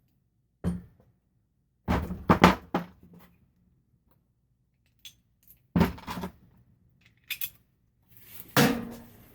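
Metal hand tools clanking and knocking against the motorcycle fork and the bench in about five short bursts while the fork cap is being tightened with a wrench. The loudest clatter comes about two seconds in and again near the end.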